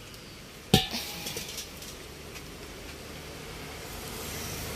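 A single sharp metallic clank about a second in, ringing briefly, followed by a few lighter knocks, over steady low background noise.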